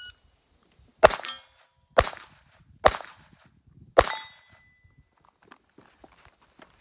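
.22 rimfire pistol firing four shots about a second apart at steel targets. Each crack is followed by the brief ring of a steel plate being hit.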